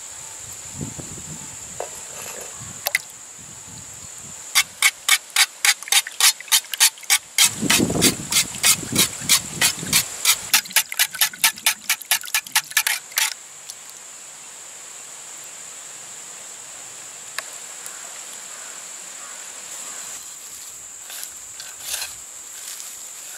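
Wire whisk beating eggs in a pot, a fast rhythmic clatter of about four strokes a second that lasts some nine seconds. A steady high insect drone runs underneath throughout, and near the end there is the soft rustle of chopped onions being mixed by hand.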